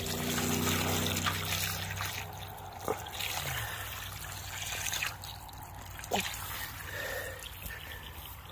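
Irrigation water trickling out of an opened gate on a gated irrigation pipe, with grass brushing against the microphone. A low hum fades out about two seconds in.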